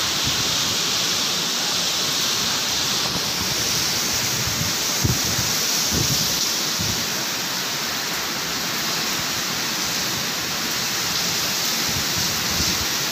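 Heavy cyclone rain and strong wind as a steady, dense hiss, with a few low gusts buffeting the microphone around five to seven seconds in.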